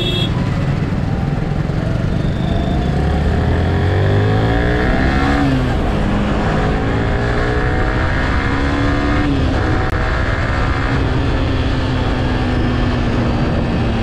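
Yamaha sport motorcycle with an aftermarket exhaust accelerating through the gears. The engine note rises and drops at a gear change about five and a half seconds in, rises again and drops at a second shift a little after nine seconds, then settles into a steady cruise.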